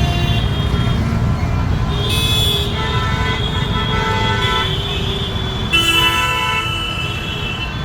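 Road traffic with vehicle horns honking several times, over a heavy steady rumble of engines and wind on the microphone.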